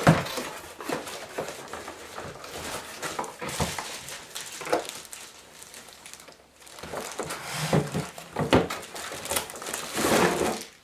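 Unpacking a cardboard box: its flaps rustle and a plastic-wrapped item is pulled out, with crinkling plastic and a few knocks of cardboard against the desk.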